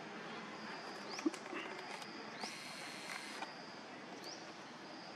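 Outdoor woodland ambience with a short, high, rising chirp repeating about every second and a half over a faint steady high tone. There is a single sharp tap about a second in.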